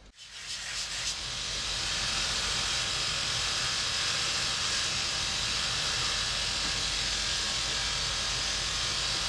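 Shoe-repair finishing machine running, coming up over the first second or so and then a steady whirring hiss with a low hum beneath, as a leather insole is shaped on its sanding wheel.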